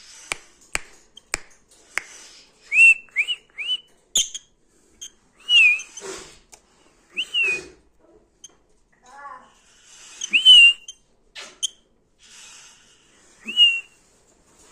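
Small pet parrot whistling short notes that rise then dip: three in quick succession, then single ones a second or two apart. Sharp clicks come in among the first few whistles.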